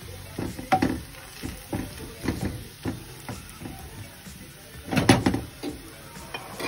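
Wooden spatula scraping and knocking against a frying pan while fried onions are pushed to one side, with a louder cluster of scrapes about five seconds in.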